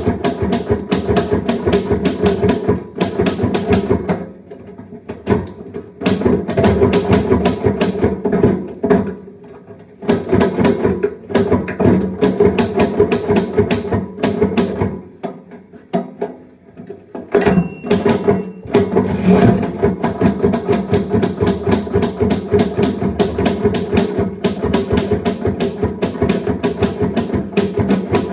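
Typewriter keys clacking in fast bursts of typing, broken by short pauses. About 17 seconds in comes a single ringing ding, the margin bell.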